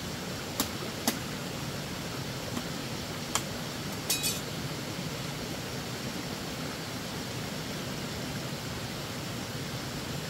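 Dry split-bamboo wall slats knocking and clacking as a bamboo wall panel is worked loose: single sharp knocks about half a second and a second in, another after about three seconds, and a quick rattle around four seconds, over a steady background hiss.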